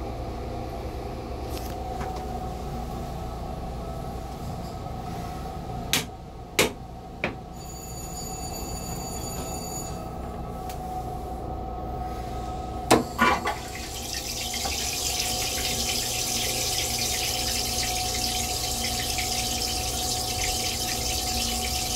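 Stainless-steel train toilet on an M3 commuter railcar being flushed: a few sharp clicks, then, about two-thirds of the way through, a steady hissing rush of rinse water. A low steady rumble from the moving train runs underneath.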